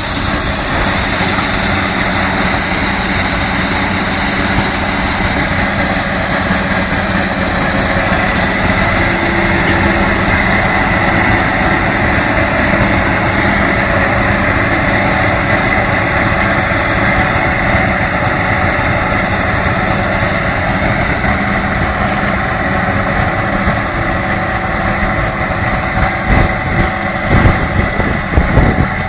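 Harvest machinery running steadily at work, an engine with a constant high whine over it. Irregular knocks and jolts come in near the end.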